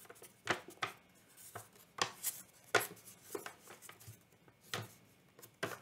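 A folded letter-size paper box being creased by hand: irregular short crackles and rustles of paper as the folded lip is pressed and turned around the box's rim.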